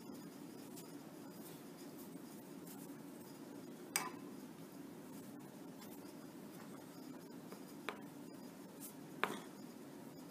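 Wax crayon scribbling on paper over a clipboard, faint, with a few sharp taps, the loudest about four seconds in. A steady low background hum runs underneath.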